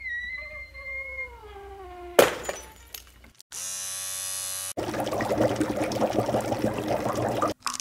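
Experimental sound-art soundtrack: a long, wavering, falling cry-like tone, a sharp hit about two seconds in, then a short buzzing block of tone and a dense noisy texture that cuts off suddenly near the end.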